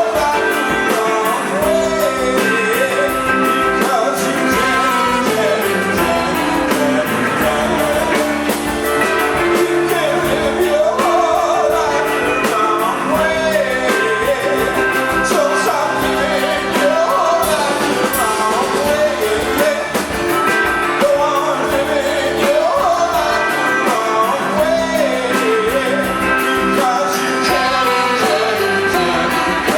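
Rock band playing live at a steady, full volume: guitars and drums with a singer's voice over them.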